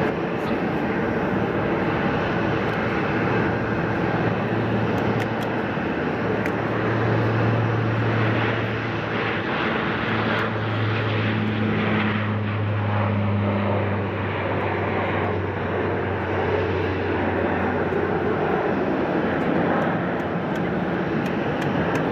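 Boeing 747-400's jet engines running at taxi power: a steady jet rumble with a low hum that holds through the middle.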